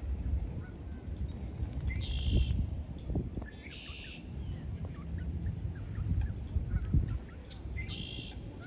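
Waterfowl on the lake calling: three short, harsh calls, about two seconds in, around four seconds in, and near the end, over a steady low rumble.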